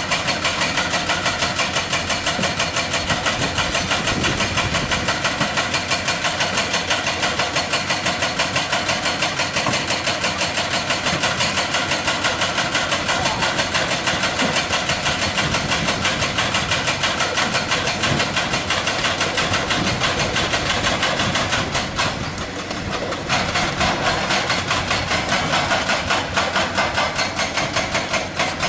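Hydraulic breaker on an excavator hammering rock in a rapid, steady stream of blows, dipping briefly about twenty-two seconds in.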